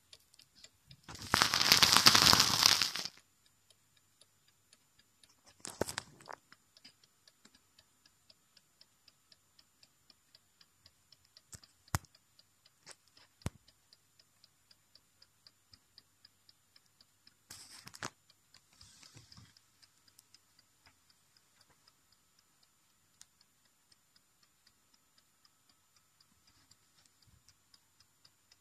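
Clock in a carved wooden barometer-and-thermometer wall piece ticking steadily, about two ticks a second. A loud rustle of handling noise comes near the start, with shorter ones a few seconds later and past halfway, and two sharp clicks in between.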